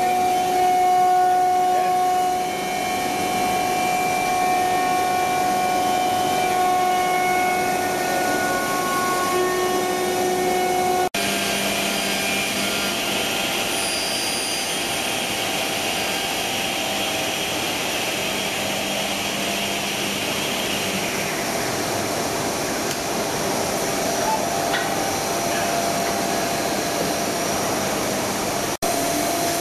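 Maka PE70 CNC router running: a steady machine whine made of several held tones over a hiss. The sound drops out for an instant twice, about eleven seconds in and near the end; after the first break a higher hiss runs for about ten seconds, then fades.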